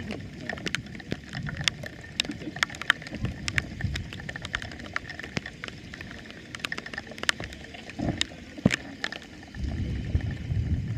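Rain falling, with many sharp, irregular taps of raindrops striking close to the microphone. Low rumbles come and go, strongest near the start and again near the end.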